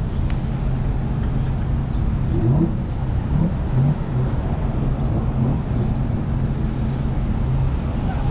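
Road traffic at a busy intersection: cars running and passing close by, a steady low rumble with an engine rising and falling in pitch between about two and four seconds in.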